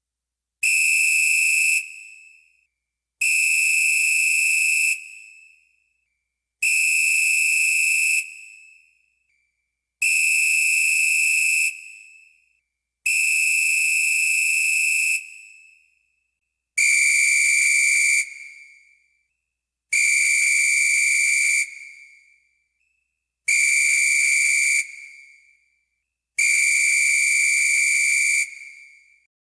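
Referee's whistle blown in nine long, steady blasts, each about two seconds long with a short pause between; the last four are slightly lower in pitch.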